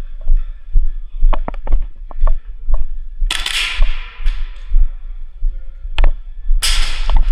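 Camera-worn movement during close-quarters airsoft play: a run of heavy low thumps and sharp clicks, broken twice by short hissy bursts of noise.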